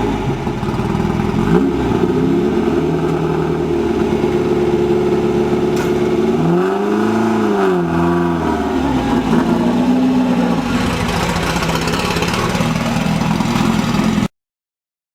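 Off-road race buggy engine running loud, revving up and down several times with the pitch rising and falling. It cuts off suddenly near the end.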